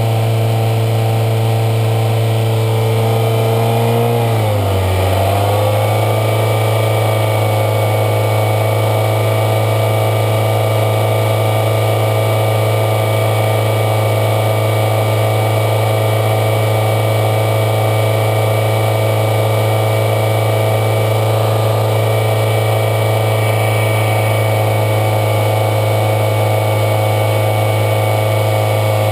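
2003 Toyota Corolla's 1.8-litre four-cylinder engine running steadily at idle while SeaFoam is fed into the throttle body. About four to five seconds in, the engine speed dips briefly, then recovers and holds a slightly higher, steady speed.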